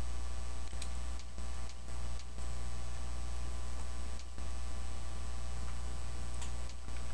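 Steady low electrical hum from the recording setup, with a few faint computer-mouse clicks scattered through it.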